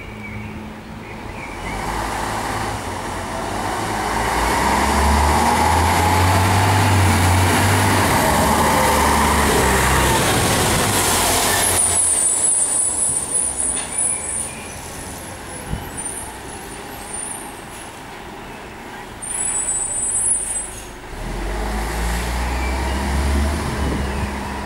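A fire engine's diesel engine running heavily as the truck drives close past, building to its loudest in the middle and then cutting off suddenly. Brief high squeals follow, then a second deep engine swell near the end as the truck moves off.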